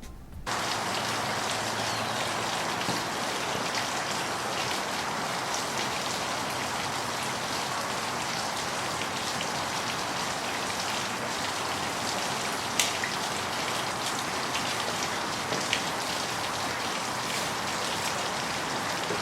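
Rain falling steadily on a surface, an even hiss with scattered louder drop ticks, starting about half a second in.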